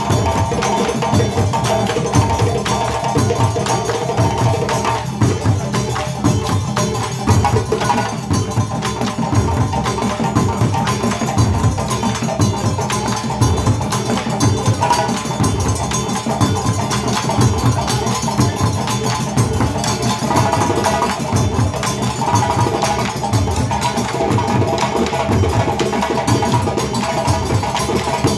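Live West African drum ensemble: djembes and tall standing hand drums struck together in a dense, continuous polyrhythm with no break.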